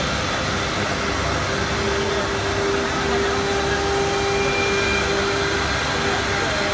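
Automatic-loading CNC router running with its dust extraction: a steady whine over a continuous rushing machine noise, the whine dropping out briefly about a second and a half in and again near the end.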